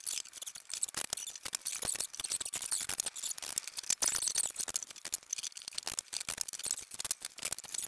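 Duct tape being pulled off the roll and torn into strips, a dense crackling run of clicks, with small knocks from plywood boards being handled and taped into place.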